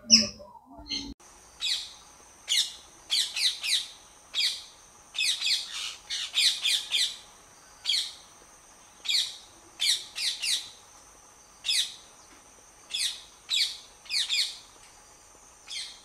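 Birds calling in an aviary: short, shrill chirping calls, one to three at a time, repeating every second or so, with a steady high-pitched whine behind them.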